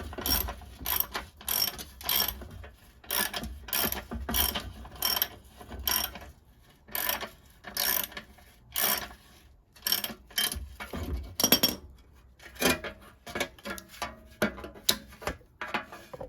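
Hand ratchet wrench clicking in repeated short strokes, about one or two a second, working a rear bumper bolt loose on a VW Beetle whose bolt is spinning in its thread rather than biting.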